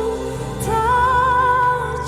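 Slow Indonesian worship song: a solo voice holds a long sung note with vibrato over sustained instrumental accompaniment.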